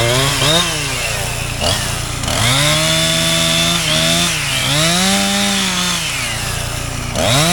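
Kubota L2501 compact tractor's diesel engine running as the front loader works a heavy log, its pitch rising, holding and falling several times as the hydraulics take the load.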